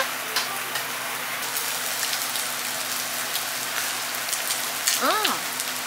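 Food sizzling as it cooks, a steady crackling hiss. A short voice sound rises and falls about five seconds in.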